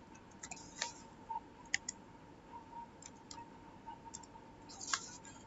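Scattered, irregular clicks of a computer keyboard and mouse as text is typed into a box, about eight in all, over a faint steady high hum.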